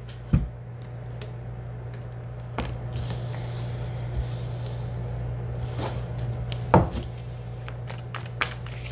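Tarot cards being handled on a cloth-covered table: soft swishes of cards sliding and being shuffled, with a few light taps as cards are set down. A steady low hum runs underneath.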